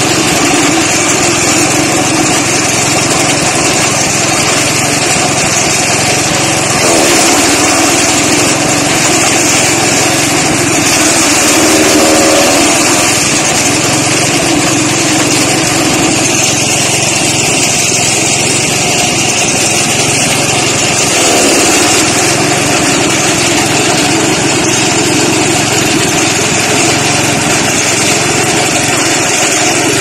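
A small petrol engine running steadily and loudly, with a few slight swells in level.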